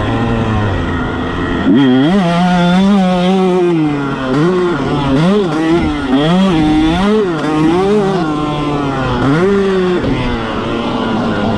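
Motocross bike engine heard close up from its own handlebars, revving up and down about once a second as the throttle is worked through the track's turns and bumps, then settling to a lower, steadier note near the end.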